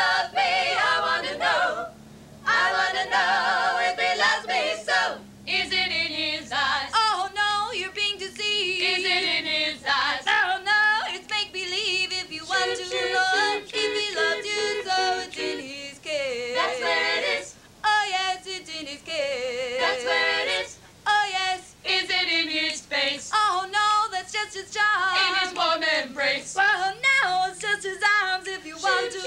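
Women's a cappella vocal group singing together, several voices and no instruments, with brief breaks between phrases.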